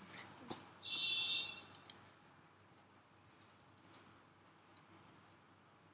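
Faint computer mouse clicks, coming in several small quick clusters, with a brief high-pitched tone about a second in.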